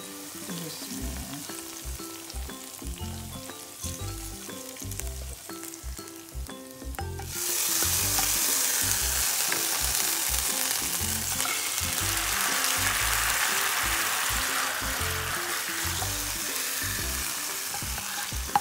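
Hot oil tadka of fried onions and Kashmiri red chili poured into nihari gravy, sizzling. The sizzle jumps sharply louder about seven seconds in, as the hot oil hits the gravy, and holds steady.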